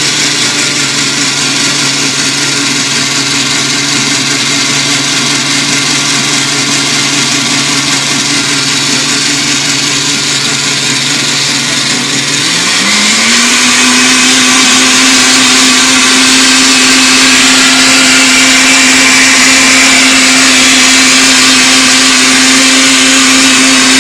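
Electric blender motor running steadily while puréeing pineapple chunks with no added water. About halfway through, the pitch rises as the speed goes up, and the motor holds at the higher speed.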